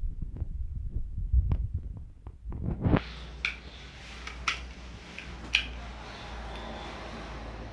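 Large plastic building blocks clicking sharply a few times as a toddler handles and fits them together, over a steady background hiss. Before that, a run of low muffled bumps from the handheld phone being moved.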